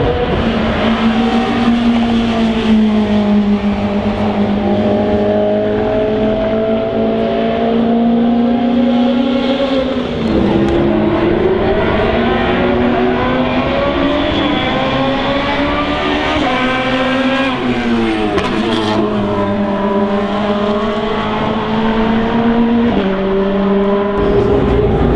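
Racing car engines running loudly on the circuit, first the BMW E30 M3 DTM car's four-cylinder and then the BMW M3 GT2's V8, the revs rising and falling several times with steps between gears.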